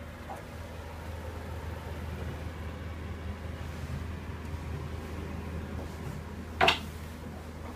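A steady low hum with one sharp knock, like something striking a hard panel, near the end.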